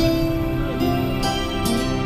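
Background music: held chords and notes, with a fresh chord struck near the end.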